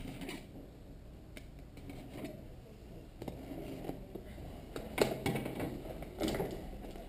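Taped cardboard box being cut open with a utility knife and handled: scraping and rustling of blade and tape on cardboard, with scattered clicks and a few louder knocks about five seconds in and again a little after six.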